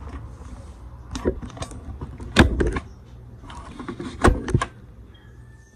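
A handful of knocks and clunks from handling things on a kitchen counter, loudest about two and a half and four and a half seconds in, over a low hum that fades out near the end.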